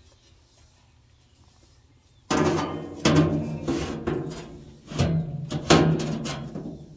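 Steel plate being set down and shifted into place inside a steel smoker's cook chamber. After a quiet couple of seconds come six or seven loud metal clanks, each ringing on in the hollow steel body.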